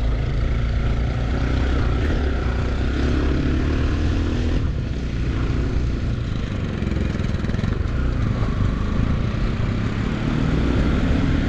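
Motorcycle engine running under load on a dirt trail, its note rising and falling as the throttle is worked, over a dense low rumble.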